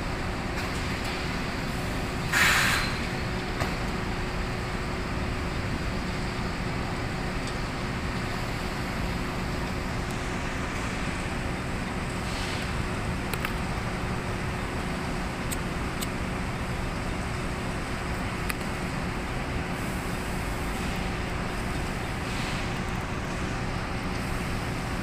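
Running inclined belt conveyor for cement sacks: a steady machinery drone with a constant hum. A brief louder noise comes about two and a half seconds in, and a few faint clicks follow.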